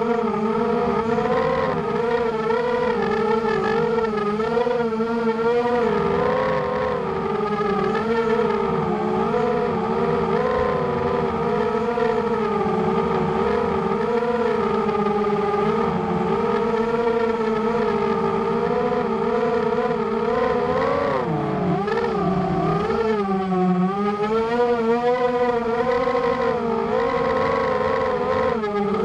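Racing quadcopter's brushless motors (Cobra 2206 2100 kV on 6x4 props) whining steadily in flight, the pitch wavering constantly with throttle and swooping down and back up about three quarters of the way through.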